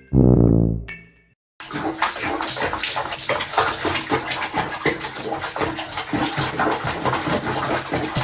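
A low musical note dies away in the first second, then water splashes and runs steadily, with many small crackling spikes, for the rest of the time.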